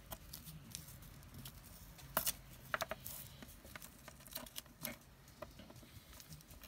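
Strips of glitter washi tape and paper being handled and pressed down by hand: scattered light clicks and rustling, with a few sharper clicks a couple of seconds in.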